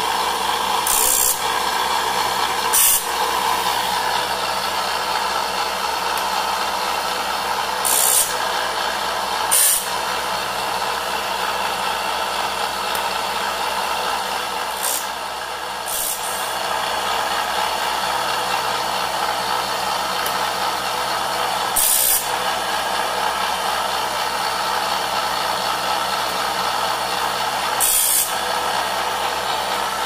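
Grinding wheel of a Foley chainsaw-sharpener running steadily while sharpening a sawmill bandsaw blade, with short hissing bursts several times as the stone bites into a tooth gullet and throws sparks.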